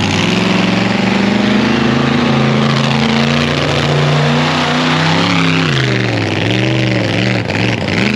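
Monster truck engine running loud, held fairly steady for about five seconds, then revved up and down several times in quick succession.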